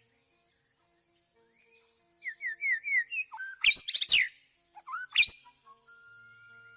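White-rumped shama singing. After a quiet start comes a run of four quick down-slurred whistles, then loud, fast sweeping notes and a second burst a second later, ending on a long held whistle.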